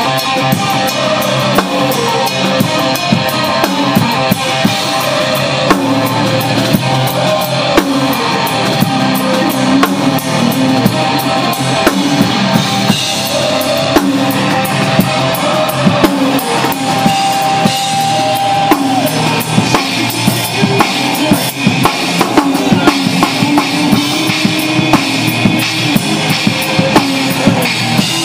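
Rock band playing: a drum kit with bass drum, snare and cymbals hit steadily, with electric guitar.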